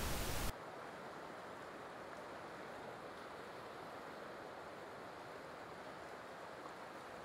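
Faint, steady wash of surf with no distinct events, mostly low and muffled.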